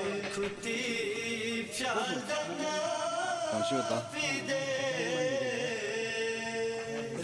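Background music: a voice singing a slow, chant-like melody with long held notes.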